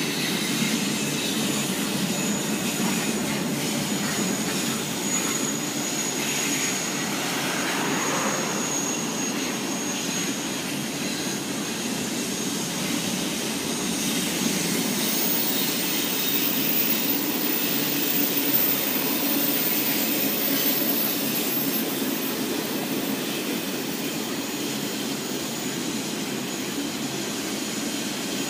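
CP Rail double-stack container freight train rolling past on a curve: the steady running noise of the cars on the rails, with a faint high whine over the first several seconds.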